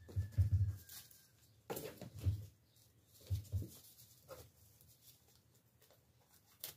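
Crepe paper rustling and light knocks and bumps as fringed paper is handled and pressed onto a cardboard piñata, with a faint steady tone for the first second or so and a sharp snip-like click near the end.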